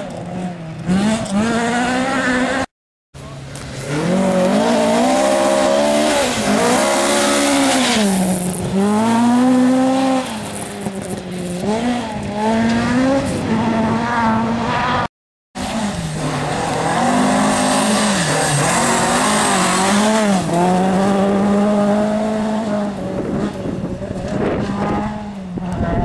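Rally car engines at full throttle on a loose gravel forest stage, the pitch climbing and dropping again and again as the drivers shift gears and lift for corners. The first car is a Mk2 Ford Escort. The sound cuts out briefly twice, about 3 s and 15 s in, between clips.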